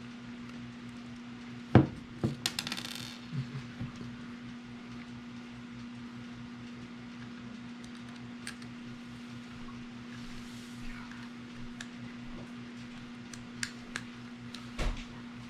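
Small hard clicks and metallic clinks of screws, nuts and rail pieces being handled while a clamp-on accessory rail is fitted to a pistol. The sharpest click comes about two seconds in, followed by a quick run of clinks, with a few scattered ticks near the end. A steady low hum runs underneath.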